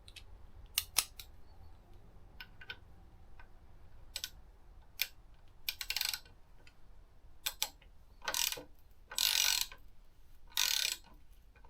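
Hand tools fitting a bar-end mirror to a motorcycle handlebar: scattered sharp metallic clicks, then three short rasping bursts in the second half as the fitting is tightened on the throttle side.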